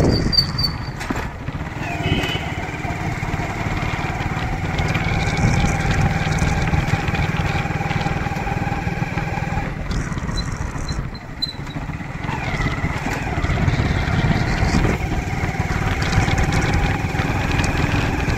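Two-wheeler's small petrol engine running steadily while being ridden. Its sound dips briefly about eleven seconds in, then the engine note rises again as it picks up speed.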